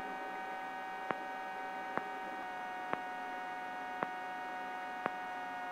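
Helicopter intercom audio with no one talking: a steady electrical hum of several pitches, with a faint tick about once a second.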